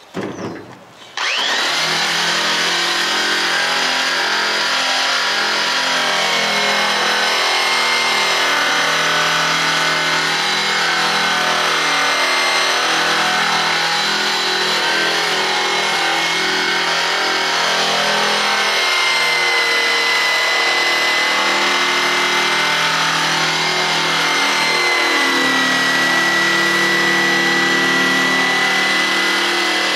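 Electric drum polisher starting up about a second in, then running steadily with a high motor whine as its abrasive drum scuffs the bare aluminium of a boat bottom to give the paint something to bite on.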